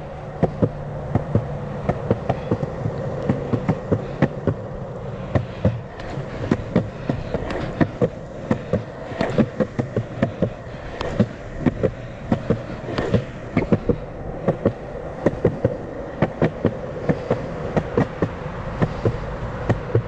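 Sector 9 longboard rolling along a concrete sidewalk: a steady wheel roll overlaid with sharp clicks a few times a second as the wheels cross the sidewalk's seams.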